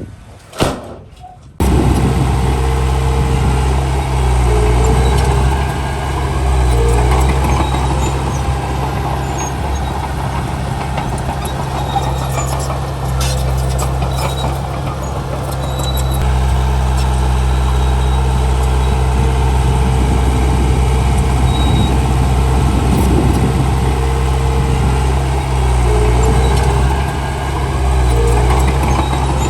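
Heavy earthmoving machinery's diesel engine running steadily under load, its pitch dipping and rising a few times. It cuts in abruptly about a second and a half in, after a brief quieter stretch with a single sharp knock.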